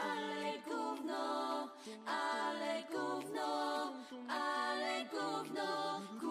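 Music of voices singing or chanting in held notes, in short phrases about a second long with brief breaks between them. A lower voice line joins about three seconds in.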